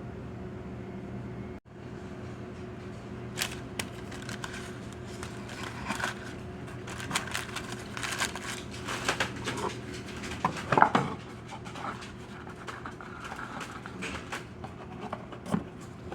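A utensil clicking, knocking and scraping against a dish in irregular strokes, over a steady low hum.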